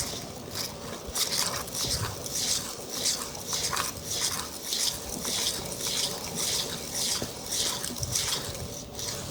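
Bamboo tea whisk (chasen) whisking matcha in a tea bowl: a rhythmic wet swishing, about two to three strokes a second.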